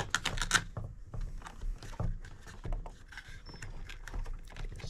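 Handling noise from a panel with connectors and an antenna being fitted onto a controller's flight case: a quick cluster of sharp clicks and knocks in the first half-second, then scattered lighter taps and rubbing.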